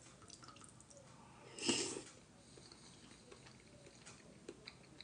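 A short slurp of soup broth, about two seconds in, followed by a few faint clicks.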